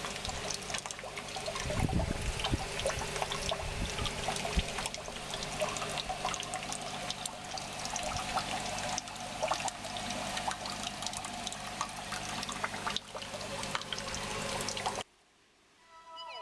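Water running and splashing in a fish-rearing tank: a steady wash of trickling water with many small splashes, cutting out suddenly about fifteen seconds in.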